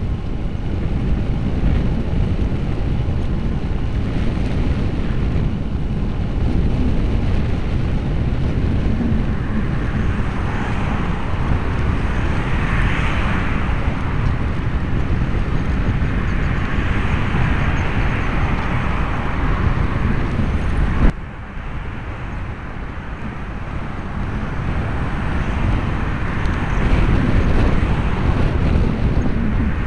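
Steady low wind noise on the microphone of a bicycle-mounted Manta MM355 action camera while riding, with car traffic swelling past on the road alongside. About 21 seconds in there is a sharp click and the noise drops for a moment.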